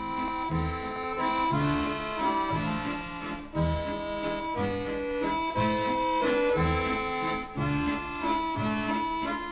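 Accordion music in a traditional style, a melody played over bass notes that fall about once a second.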